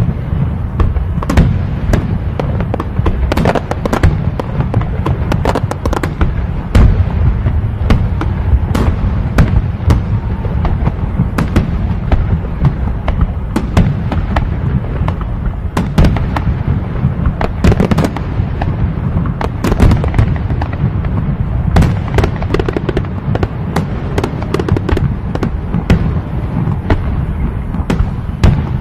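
Aerial fireworks display with shells bursting in rapid, overlapping succession: a constant low rumble of booms with frequent sharp cracks and no pause.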